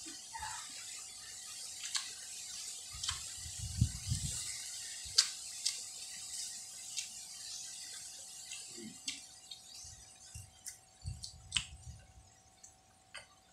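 A person eating mango: sharp wet mouth clicks and lip smacks from chewing and sucking the fruit, with soft low thumps and a faint steady tone underneath.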